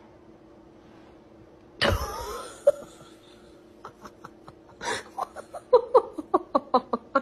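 A sudden loud cry about two seconds in, then a person laughing in short quick bursts, about four a second, that grow stronger near the end.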